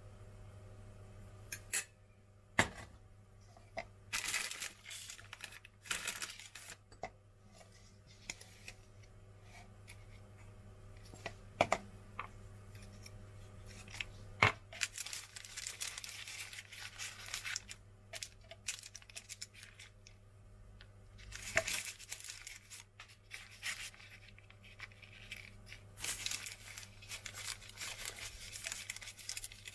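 Baking paper rustling and crinkling in spells as puff pastry is folded into parcels on it, with a few single sharp clicks over a faint steady low hum.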